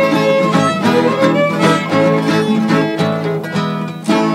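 Folk string music: a bowed fiddle plays a melody over plucked guitar-like strings. It thins to a held chord near the end.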